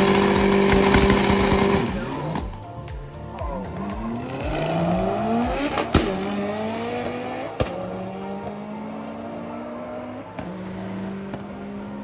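Drag racing car engine held at a steady high rev, then about two seconds in it launches and pulls away. Its pitch climbs repeatedly through the gear changes as it fades down the strip.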